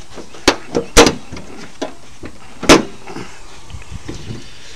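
A truck's hood being unlatched and swung open: a run of sharp metal clacks and bangs, the loudest about a second in and again near three seconds in, with smaller clicks between.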